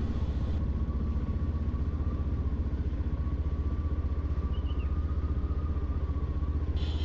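Yamaha FZ-X's single-cylinder engine running steadily while riding, with a fast, even pulse.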